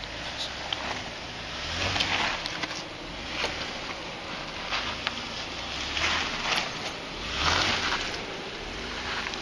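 Jeep Wrangler crawling slowly over rock, its engine a low rumble under irregular crunches of tyres grinding on grit and stone.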